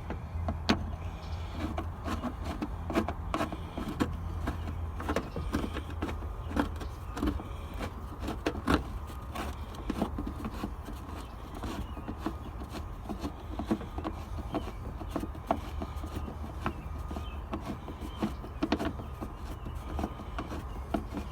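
Irregular metal clicks and clinks of hand tools and bolts as a car radiator is bolted back into place, over a steady low hum.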